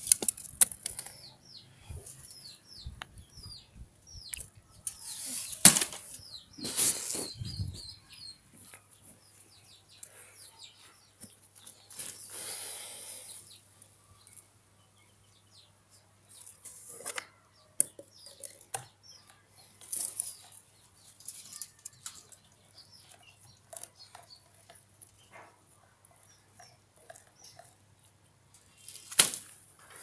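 Intermittent rustling and knocking as the wooden sticks and netting of a hand-built bird trap are handled, with a few louder bursts. Small birds chirp off and on in the background.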